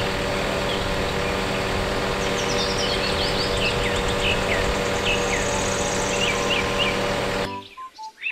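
Van-mounted aerial work platform running with a steady machine hum as its boom holds the basket aloft, with birds chirping over it. The sound cuts off abruptly near the end.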